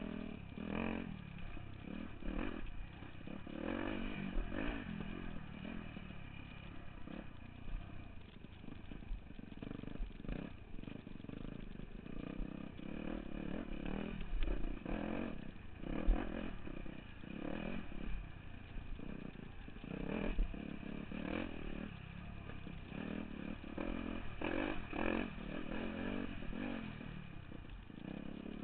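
Dirt bike engine running from the rider's helmet camera, rising and falling as the throttle changes over the rocky climb. Irregular knocks and rattles sound from the bike riding over rock, with bursts of low wind rumble on the microphone.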